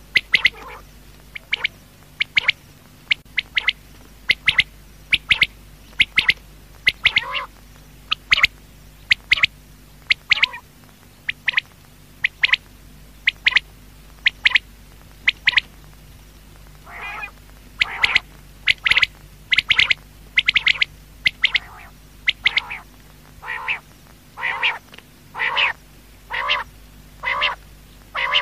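Quail calling over and over: short, sharp, high calls repeated about once a second, often in quick pairs or threes. From about halfway on, lower, buzzier calls join in between them.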